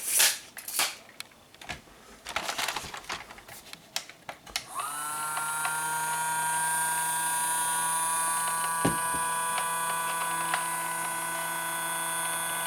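Clicks and rattles of handling for the first few seconds. Then, about five seconds in, a small electric motor starts with a brief rising whine and runs at a steady high whine: the RC track loader's motor driving the rods that push its lift arms.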